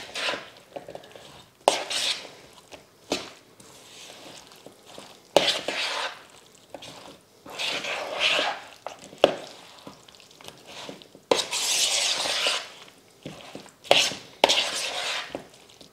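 A metal spoon stirring a thick, creamy egg salad in a mixing bowl, in irregular strokes. Each stroke gives wet squelching and scraping against the bowl, with an occasional click of the utensil on the bowl wall.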